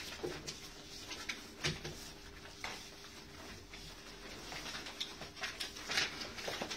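Paper ballots rustling and crinkling as they are unfolded and handled, in short irregular crackles.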